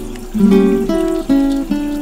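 Background music on acoustic guitar: plucked notes and chords changing a few times a second.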